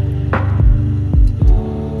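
Background music: a slow song in a pause between sung lines, with sustained chords and three deep bass notes around the middle.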